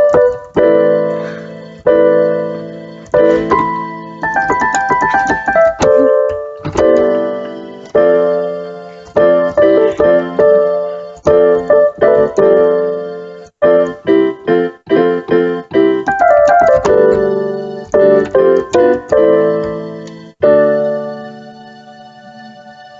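Instrumental music: keyboard chords struck one after another, each ringing and dying away, with a quick run of chords around the middle. Near the end it falls to quieter held notes.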